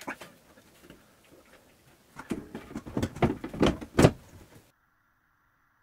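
The print processor's cover panel being handled and pressed into place: a run of sharp clicks and knocks, the loudest about four seconds in, then the sound stops abruptly.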